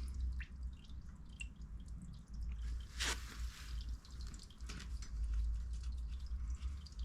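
Used engine oil dripping from a motorcycle's filter housing and sump into a drain pan: a few separate drips, the clearest about three seconds in, over a low steady rumble.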